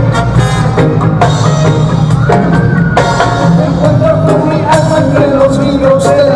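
Reggae band playing live: a steady drum beat and bass, with a long held melody line, likely sung, in the second half.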